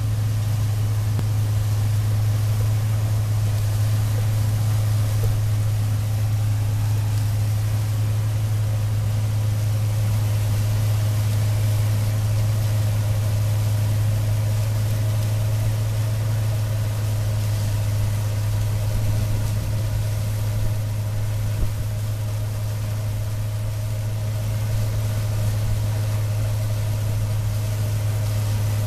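Case 960 combine running steadily as it picks corn, a steady low drone.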